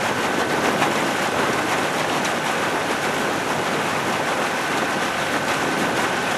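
Coaching launch's outboard motor running at a steady speed, with water rushing along the hull; a thin high whine sits steadily over the noise.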